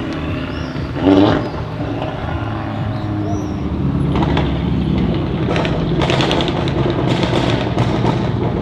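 Audi RS3 8V's turbocharged inline five-cylinder, fitted with a Milltek downpipe and with the secondary catalytic converter removed, running steadily near idle. A short loud burst comes about a second in, and a run of short sharp clicks follows in the second half.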